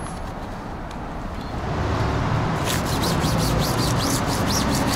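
Low traffic rumble that grows louder about two seconds in, with quick crinkling and rubbing of paper as a pixel-art paper poster is pressed and smoothed onto a wall by hand.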